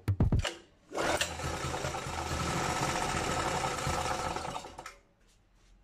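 The small gasoline engine of a restored portable generator runs steadily for about four seconds, then dies away about five seconds in. A few sharp clicks come just before it, at the very start.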